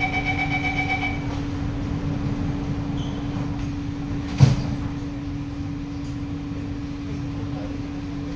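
Door-closing warning beeps of a C151C metro train, a rapid run of short tones lasting about a second, over the steady hum of the standing train's equipment. A single loud thud comes about four and a half seconds in, around when the doors finish closing.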